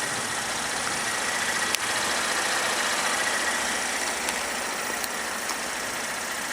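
Holden VF Commodore SV6's 3.6-litre V6 idling steadily and very quietly.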